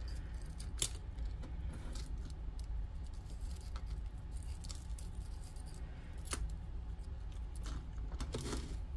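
Metal costume jewelry clinking and jangling as pieces are handled and sorted, with scattered light clicks over a low steady hum.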